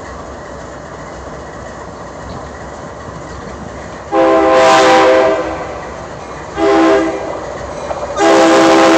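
Metra commuter train approaching with a steady low rumble, then sounding its multi-note horn: a long blast about four seconds in, a short one, and another long blast starting near the end.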